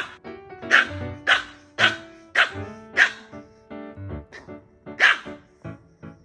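Pomeranian puppy barking in short, sharp barks, about six in the first three seconds and one more about five seconds in, over background music.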